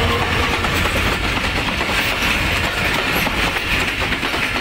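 Passenger train running past on the line: a steady rumble of wheels on the rails, with a hiss that grows stronger about two seconds in.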